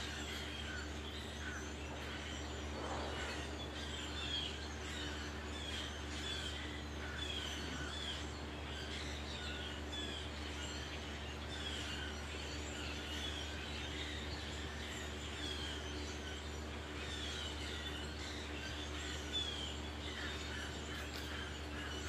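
A large flock of blackbirds calling from the treetops: a dense, continuous chatter of many short overlapping chirps, over a steady low hum.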